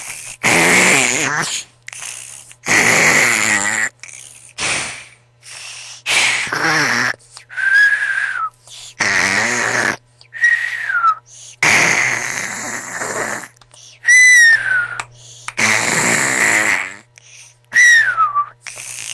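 A person snoring loudly: a run of rough, rattling snores about every one to two seconds, alternating with short whistling tones that fall in pitch.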